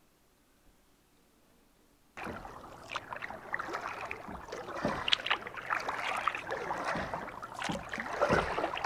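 A kayak being paddled: irregular splashing and dripping of the paddle blades in the water, starting suddenly about two seconds in after near silence.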